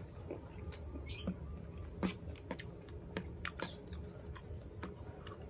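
Close-miked chewing of rice and fried tempeh, with irregular wet mouth clicks scattered through, over a low steady hum.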